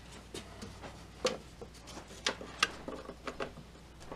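Hands working at a chassis bolt under a Zenith Trans-Oceanic radio's cabinet: about ten light clicks and scrapes, two sharper clicks a little over a second in and about two and a half seconds in.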